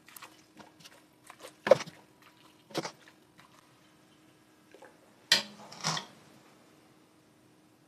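A metal ladle scooping ash-lye water from a steel pot and pouring it into a cloth-lined strainer: a few short knocks of the ladle against the pot and splashes of liquid, the sharpest a couple of seconds in and two more close together near the end.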